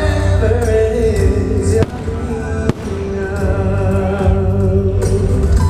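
Music with singing for an aerial fireworks show, with firework shells bursting over it; one sharp crack about two and a half seconds in.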